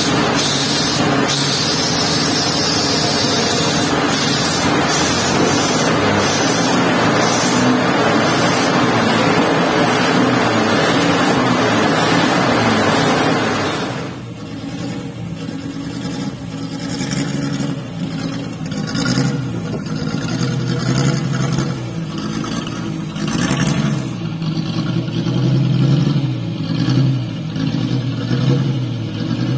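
Praga RN truck's engine running, with a loud, even rushing noise over it. About halfway through the sound drops to a quieter engine note that rises and falls with the throttle as the truck drives slowly.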